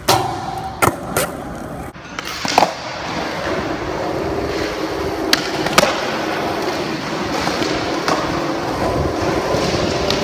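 Skateboard wheels rolling on a smooth polished concrete floor with a steady low roar, broken several times in the first half by sharp clacks of the board hitting the ground.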